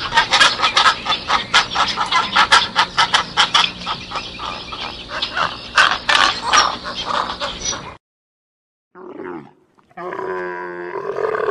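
Animal calls: a dense run of rapid, harsh calls for about eight seconds that stops abruptly. After a short pause come a brief call and then a longer pitched call near the end.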